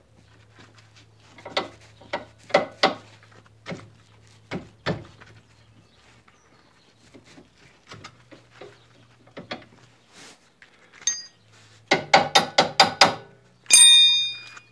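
Metal clicks and knocks as a new anti-roll bar link is worked onto a Peugeot 206 stabiliser bar. Near the end comes a quick run of sharp clicks, about seven a second, then a single loud ringing metal clink.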